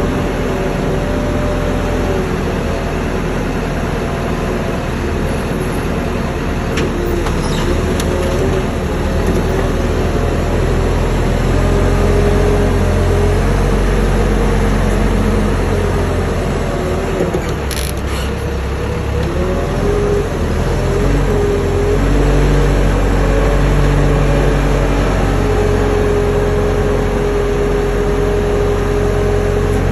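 Forklift engine running under load while the mast lifts a stack of lumber. Its pitch rises and falls, then holds steady near the end.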